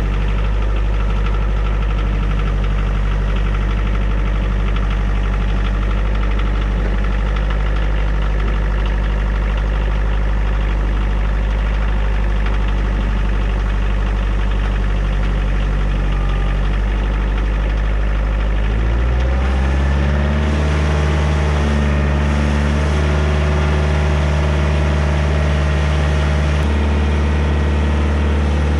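A compact tractor's diesel engine running steadily while the front loader lifts a sawmill on a chain. About two-thirds of the way through, the engine speed steps up and then holds at the higher pitch.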